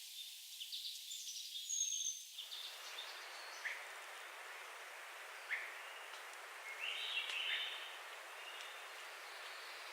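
Small forest birds chirping and calling in short, high notes, with a brief flurry of calls about seven seconds in. A steady hiss sets in abruptly about two and a half seconds in.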